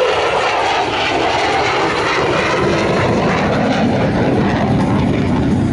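Lockheed Martin F-16 Block 40 fighter jet flying a demonstration pass, its General Electric F110 turbofan making loud, continuous rushing jet noise. The sound drops lower in pitch about halfway through as the jet banks away.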